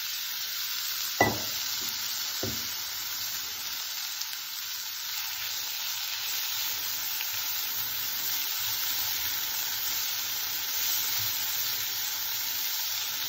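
Green beans and crumbled toor dal sizzling in oil in a non-stick frying pan while being stirred with a silicone spatula. Two sharp knocks come about a second in and a second later.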